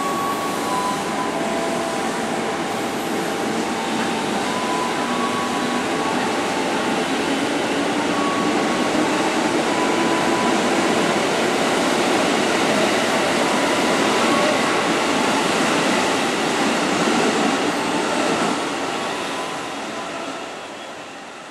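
KRL commuter electric train running along the station tracks: steady wheel-on-rail rumble and hiss, with a faint whine rising in pitch partway through. The noise fades away over the last few seconds.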